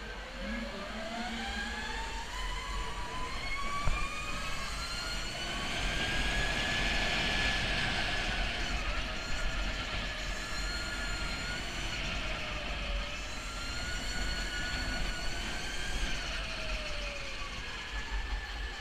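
Electric go-kart's motor whine: a set of tones that climbs steadily in pitch as the kart accelerates over the first several seconds, then dips and rises again through the corners. A steady low rumble of tyres and wind runs beneath it.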